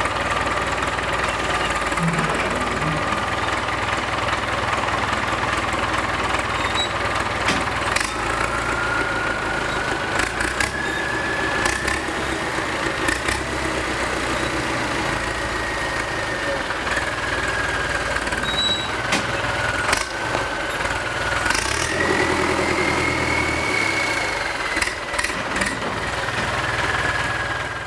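Ford 6610 tractor's four-cylinder diesel engine, fitted with a big turbocharger, running at a steady speed. Over it a thin high whine slowly rises and falls, and a few sharp clicks stand out.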